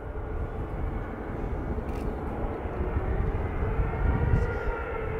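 Jet airliner engines: a steady rumble with a faint whine that drifts slightly in pitch, getting somewhat louder near the end.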